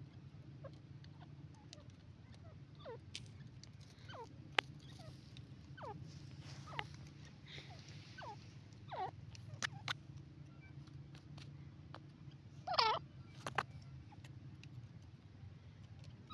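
Grey francolin giving a series of soft, short calls, each sliding down in pitch, at irregular intervals of a second or so, with one louder, quavering call about thirteen seconds in. A few sharp clicks are mixed in.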